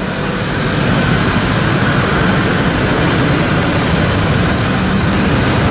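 Steady street traffic noise from cars and scooters driving along a busy road, with a constant low engine hum under it.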